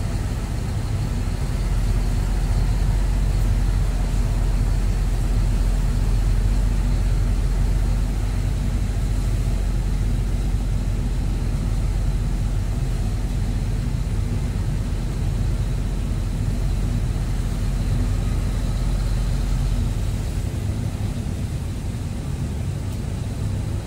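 Heavy diesel engine running steadily with a deep low rumble, heard from inside the excavator's cab; the rumble grows a little about two seconds in and eases near the end.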